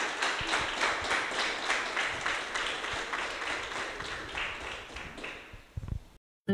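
Congregation applauding, the claps falling into a steady rhythm of about four a second and fading out about five seconds in. A low thump near the end, then the sound cuts off suddenly.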